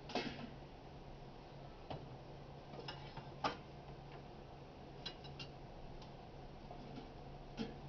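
Irregular sharp knocks of a knife on a cutting board as an onion is cut, several seconds apart and in a quick cluster of three about five seconds in, over a low steady hum.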